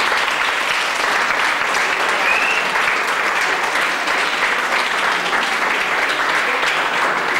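Audience applauding: many hands clapping in a steady, dense patter that holds at full strength throughout.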